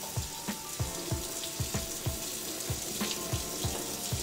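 Background music with a steady thumping beat, over a steady hiss from the kitchen.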